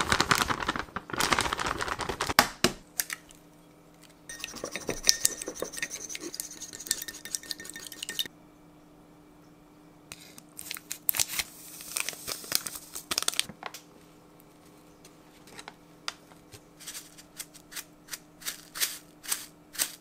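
Plastic bag rustling and flour pouring into a glass mixing bowl, in three spells. Light clicks and taps of bowls and packets follow, quickening near the end.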